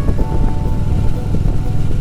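Music with held melodic notes playing over the steady low rumble of a Harley-Davidson Road Glide's V-twin riding at speed, with wind noise on the microphone.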